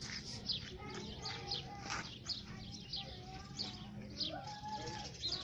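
Small birds chirping: a steady stream of short, high, downward-sliding chirps, several a second.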